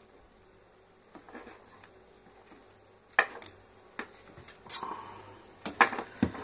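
Handling noise from a disassembled angle grinder's plastic motor housing and parts on a workbench: a few short, sharp clicks and knocks, the first about three seconds in and most of them near the end.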